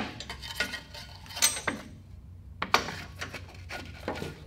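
Wooden boards being shoved in under a go-kart's engine plate: wood scraping and knocking against the metal, with several sharp clacks and a short lull about halfway.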